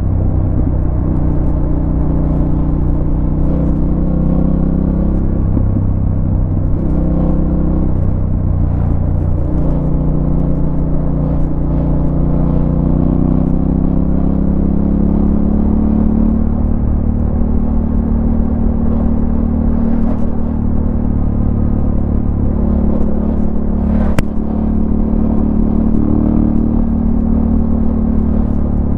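Yamaha Ténéré 700's parallel-twin engine running under way on a ride, its pitch rising and falling gently with the throttle. There is a single sharp click late on.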